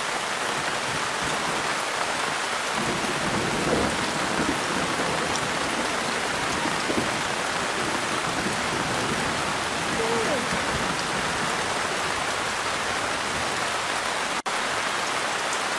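Steady hiss of rain falling on surfaces, even and unbroken, cutting out for an instant near the end.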